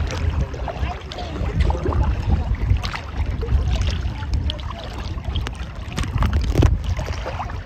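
Seawater sloshing and splashing against a camera held at the surface, with a steady low rumble of waves on the housing and many small splashes and drips ticking over it.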